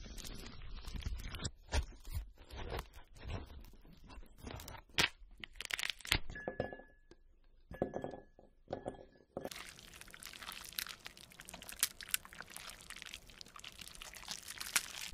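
A series of close-up crunching and clinking sounds, many short crisp clicks and crackles, from fruit and small objects being handled. The sounds drop to a quieter stretch a little past the middle, then come back as a denser crackle.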